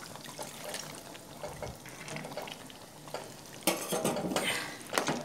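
Metal spatula stirring and scraping thick chicken curry around a metal pan, with the masala frying and sizzling underneath. The scraping grows louder about three and a half seconds in and again near the end.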